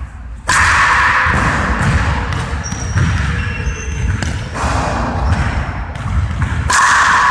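Ball bouncing with thuds on a hardwood gym floor, echoing in a large hall, with three short bursts of hiss.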